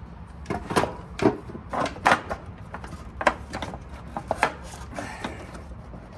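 Irregular knocks and clicks of plastic and metal as hands push and flex the motorcycle's plastic inner fender against the frame.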